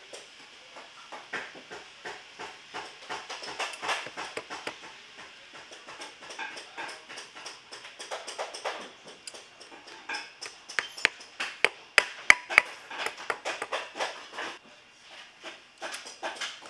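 Hand lasting of a leather boot: lasting pliers pull the suede upper over the last, with irregular sharp taps and clicks as tacks are driven in with the pliers' hammer head. A few louder taps come about three quarters of the way through.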